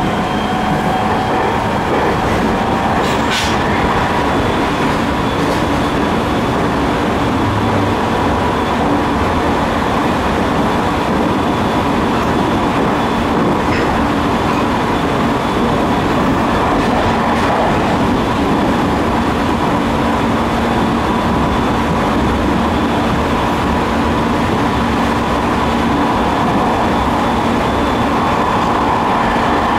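JR 209 series 3100 subseries electric train with GTO-VVVF inverter and MT68 traction motors running between stations, heard from inside the passenger car: a steady rumble of wheels and motors on the track with faint steady whining tones. A brief sharp click sounds about three seconds in.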